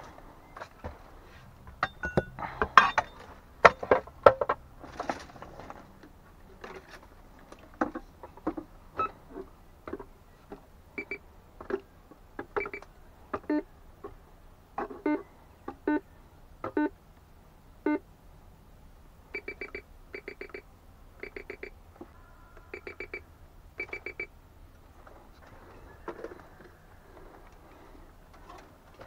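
Metal detector beeping as its search coil sweeps over rubble, signalling metal in the ground: short pitched beeps, singly about once a second at first, then in quick tight groups. A few sharp knocks and clatters come in the first few seconds.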